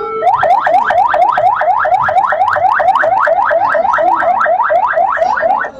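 Electronic siren on the arriving limousine sounding a fast yelp, a rising whoop repeated about four times a second. It cuts off suddenly near the end.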